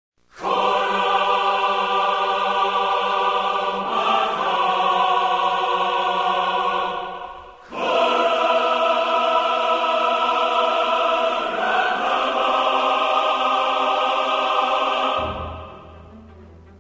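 Background choral music: a choir singing long held chords that change about every four seconds, with a short drop before the third chord. It fades about fifteen seconds in, leaving a quiet low held note.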